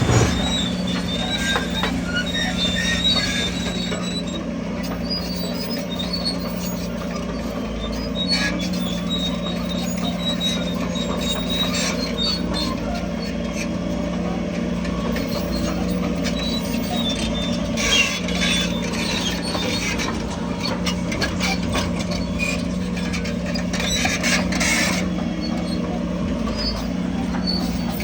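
Crawler bulldozer working: its diesel engine running at a steady pitch while the steel tracks squeal and squeak, with occasional short clanks.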